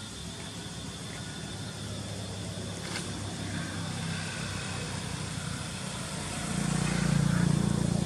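A motor vehicle's engine running as a steady low hum, growing louder about six and a half seconds in as it comes closer.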